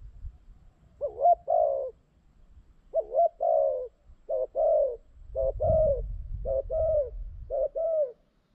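Spotted dove cooing: six two-part coos, each a short note followed by a longer, slightly falling one, about one a second. A low rumble sits underneath the middle calls.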